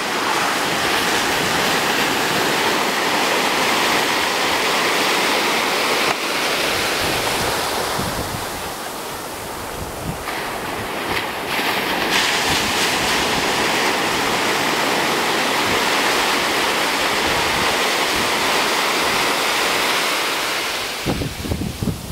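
Surf breaking and washing over a sandy beach in a steady loud rush, with wind buffeting the microphone. It eases off for a couple of seconds about a third of the way in, then builds again.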